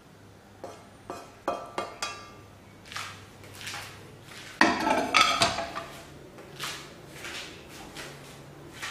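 Metal spatula scraping and clinking against a wok and a serving bowl as curry is scooped out, with several sharp ringing clinks in the first two seconds. A louder clatter of cookware comes a little past halfway, followed by softer scuffs.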